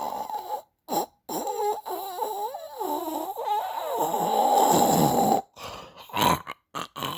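Snoring with a wavering pitch, broken by a few short gaps.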